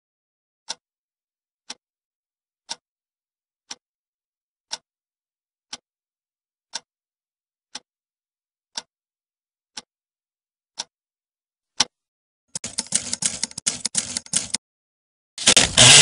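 A clock ticking once a second, about a dozen even ticks, then a fast flurry of typewriter keys clattering for about two seconds. A loud burst of noise comes just before the end.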